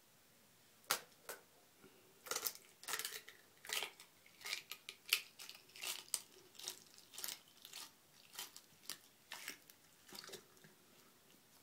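Black-throated monitor lizard biting down on a crocodile egg held in its jaws: a run of sharp, irregular cracks and crunches, about two a second, starting about a second in and stopping near the end.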